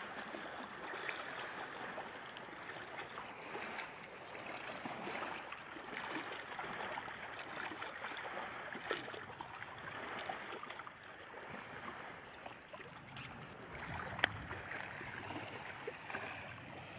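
Faint, steady rushing outdoor background noise, with one sharp click about fourteen seconds in.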